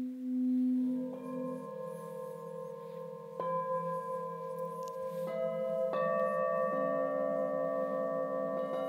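Singing bowls struck one after another, about five strikes in all, each leaving a long steady ringing tone that layers over the ones before, with a low wavering beat underneath.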